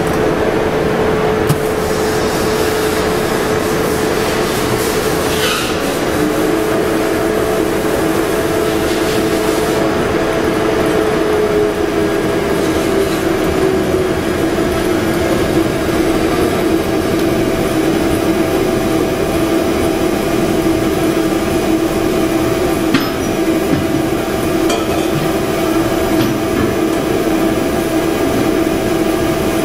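Motor of a TENZ TP-B-20L bake powder mixer running steadily: a loud, even machine drone with a hum whose pitch slides a little lower about twelve seconds in.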